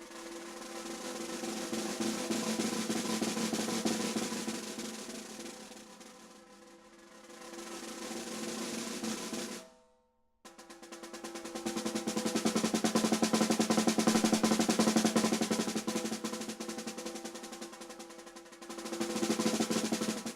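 Brady 14 x 6.5 inch solid Jarrah block snare drum played in fast rolls that swell louder and fade, with the shell's steady ring under the strokes. The roll breaks off abruptly about ten seconds in, then a second roll builds up again, fades and swells once more near the end.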